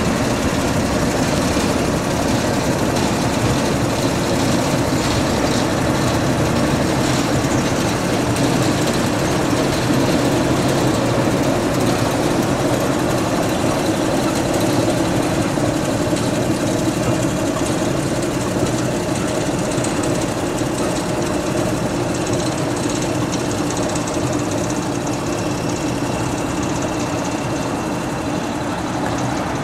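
WD diesel shunter's engine running steadily at low revs as the locomotive moves slowly across the yard, getting a little quieter toward the end as it draws away.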